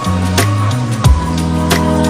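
Lofi-style chill music with a steady beat: kick-drum hits about every 0.6 seconds over a held bass line, with light ticking percussion on top.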